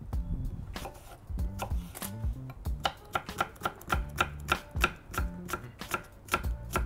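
Chef's knife chopping a Granny Smith apple on a wooden cutting board: a quick, even run of knife strikes on the board, about four a second.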